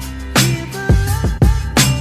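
Background music with a heavy drum beat, bass line and a gliding melodic line, in a hip hop or R&B style.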